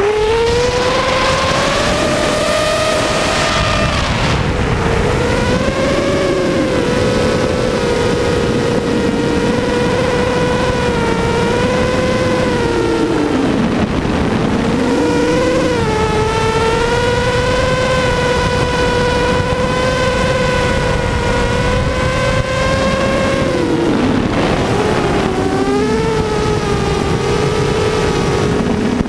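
The four Cobra 2000 KV brushless motors and propellers of a ZMR 250 racing quadcopter whining in fast flight, heard from on board. The pitch holds mostly steady, with a few short dips and rises as the throttle changes.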